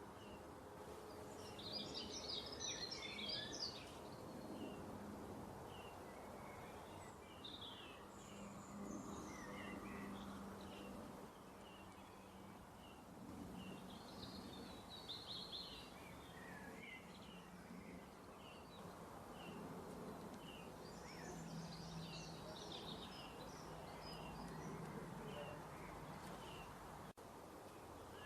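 Small birds chirping and twittering faintly in the background, short repeated chirps with a few denser bursts of trilling, over a low steady hum.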